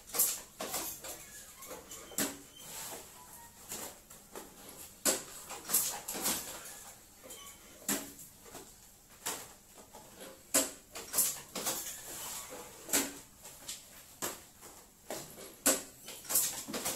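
Thin plastic popcorn bags crinkling and rustling in short, irregular bursts as they are handled and packed, with sharp crackles every second or so.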